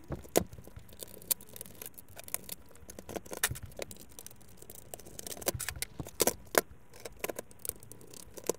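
Plastic parts of an inkjet printer clicking, knocking and rattling as gloved hands work its inner mechanism loose from the casing: irregular sharp clicks with a few louder knocks.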